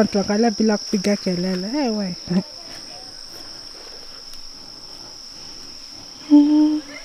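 Insects calling in the woodland: one steady high-pitched drone that never lets up. A voice talks over it for the first two seconds, and a short hummed sound comes near the end.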